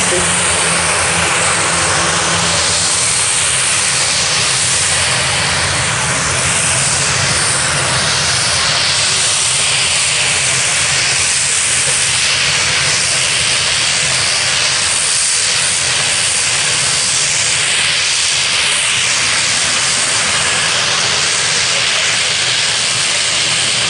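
Steady hissing roar of a Boeing 787 Dreamliner's jet engines as the airliner rolls along the runway.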